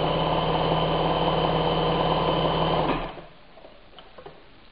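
Bernina 817 sewing machine stitching at its fastest speed setting, a steady rapid mechanical run that stops about three seconds in.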